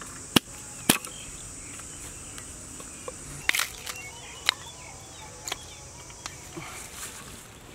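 Sharp wooden knocks and clacks, a few seconds apart, as short split sticks of firewood are handled and set into a small dug fire pit. A steady high thin hum runs underneath.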